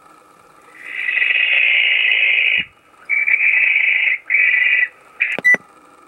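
Barn owl screeching: a long, harsh, hissing shriek of about two seconds, then three shorter ones, each shorter than the last. A couple of sharp clicks come near the end.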